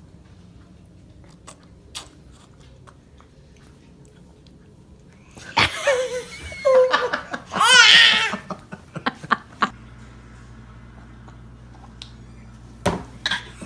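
A baby laughing in a short burst of high-pitched giggles about halfway through, with a few small clicks and taps around it.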